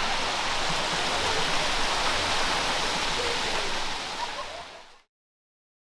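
Steady rush of flowing water, fading out over about a second to dead silence about five seconds in.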